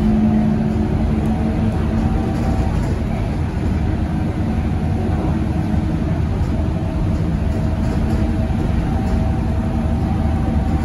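Scania K230UB city bus heard from inside the cabin while driving: the rear-mounted diesel engine and drivetrain run steadily under a low rumble, with tyre noise from the wet road.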